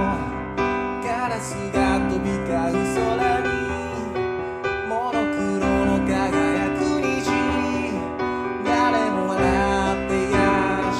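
Kawai piano playing a slow song arrangement: sustained chords with a melody over them, changing every second or so.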